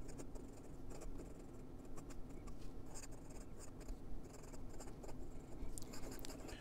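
Hongdian N8 fountain pen's stiff, fine Chinese steel nib scratching across lined notebook paper in quick cursive writing: a faint, uneven run of short scratchy strokes. The nib is writing scratchy and a bit dry, which the writer puts down to the pen running out of ink.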